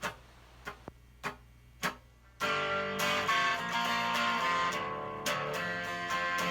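Four sharp clicks about half a second apart, then strummed guitar chords come in loudly about two and a half seconds in, opening the song.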